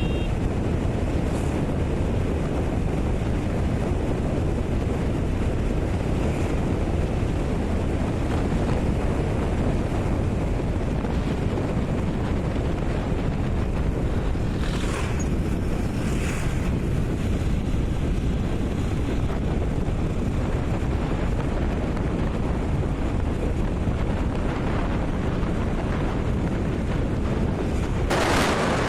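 Steady, loud rushing noise, heaviest in the low end, typical of wind buffeting the microphone.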